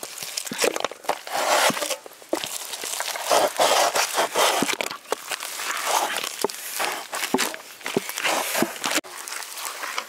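Rustling and crinkling handling sounds with many small clicks, broken by brief pauses.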